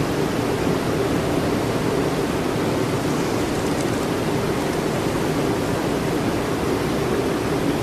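Steady, even rushing noise with no distinct events, like the air and ventilation hush of a large hall.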